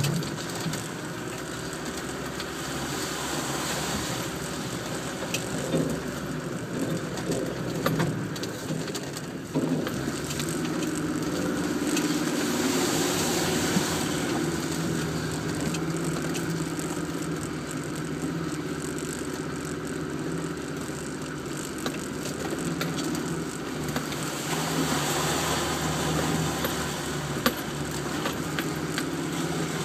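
Land Rover Defender engine running steadily as the vehicle crawls over rutted mud tracks, heard from inside the cab, with occasional sharp knocks from the vehicle over the bumps.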